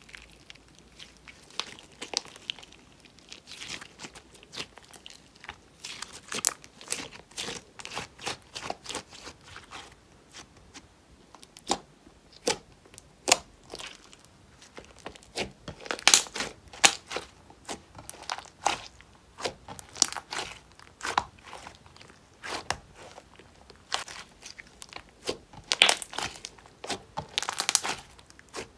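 Hands stretching, poking and kneading glossy glitter slime: irregular sticky clicks and pops, with louder clusters about halfway through and near the end.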